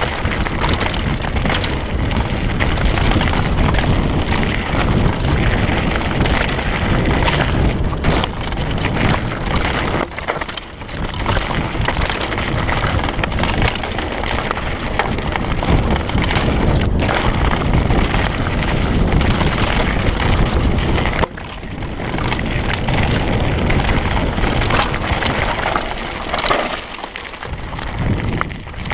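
Trek Remedy 9 mountain bike running fast down a rocky gravel trail: tyres crunching over loose stones and the bike rattling, a dense steady noise full of small knocks, with wind rushing over the microphone. It drops away briefly twice, about ten and twenty-one seconds in.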